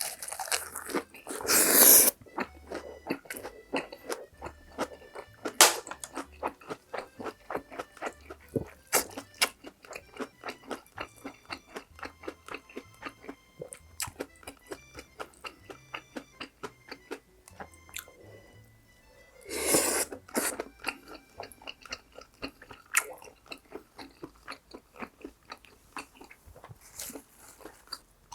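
Close-miked chewing of spicy cheese chicken stir-fry (dakgalbi) with cabbage, crunchy and rhythmic at about two to three chews a second. There are two louder crunchy bursts, one near the start and one about two-thirds of the way in.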